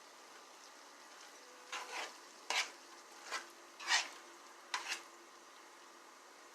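A utensil stirring and scraping squash in a pan: a quiet first two seconds, then about eight short scraping strokes in quick pairs and singles, over a faint steady sizzle of the food frying.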